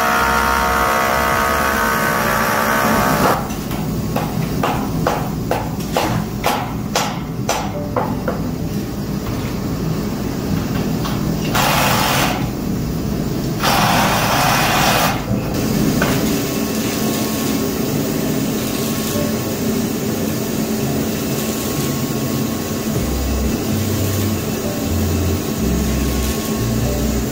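A hammer striking anchor bolts that fix a steel column base plate to a concrete floor, about two blows a second for several seconds, followed by two short bursts of louder noise. Later a steady hissing crackle of arc welding on steel beams, with background music at the very start.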